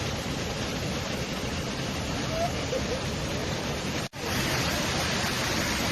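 Waterfall: a steady rush of falling water. The sound cuts out for an instant about four seconds in.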